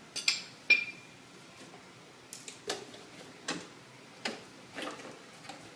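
A string of sharp, light clicks and clinks of small hard objects. Two louder ones come within the first second, one with a short ring, then lighter clicks about every half to one second.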